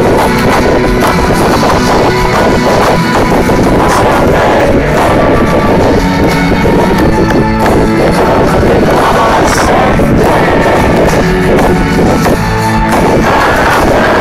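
Live band playing loudly over a large outdoor PA, with singing, heard from within the crowd.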